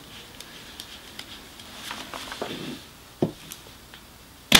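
Parkside PET 25 electric nailer-stapler firing once near the end, a single sharp loud shot as it drives a staple into softwood studwork timber on its deepest setting. Before it come a few light clicks and soft handling as the tool is set and placed on the wood.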